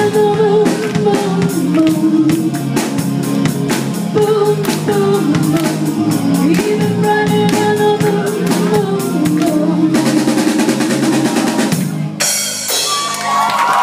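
A live band with a drum kit playing a pop song, the melody in long held notes over a steady beat, building to a loud cymbal wash. About twelve seconds in, the music stops and the crowd breaks into cheering and high-pitched screams.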